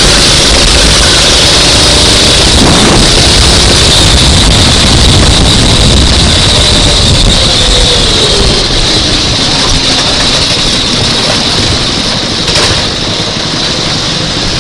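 Kart engine running, then slowing about halfway through: its pitch falls and it settles toward idle, with a single knock near the end.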